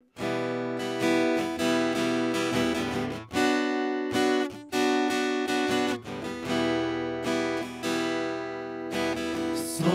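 Acoustic guitar playing a strummed and plucked chord introduction, each chord ringing on before the next stroke; the singing has not yet come in.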